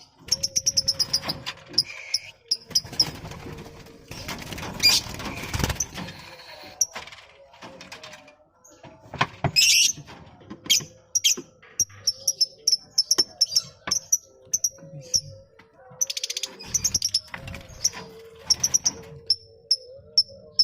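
Colony of lovebirds chattering in rapid runs of short, shrill chirps, several a second. Scattered sharp knocks, and a stretch of rustling about four seconds in.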